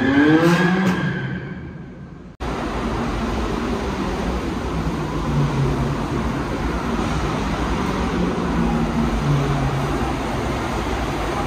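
A car engine revs up, rising in pitch, then fades away over about two seconds. It cuts off abruptly, and a steady, noisy rumble of traffic follows.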